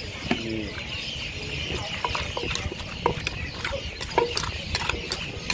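A wooden pestle pounding papaya salad in a mortar: dull knocks that begin about two seconds in and come two to four times a second.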